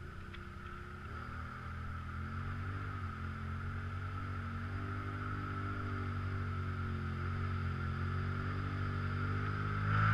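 ATV engines running: a steady idle close by, and a second quad's engine rising and falling in pitch as it works through deep mud water, growing gradually louder with a jump in level near the end.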